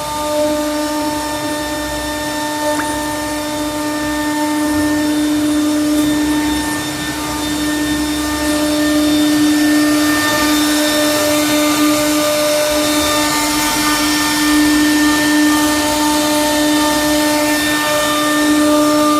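CNC router spindle running steadily with a constant whine while the bit carves a relief into wood, with a cutting hiss that grows louder about halfway through.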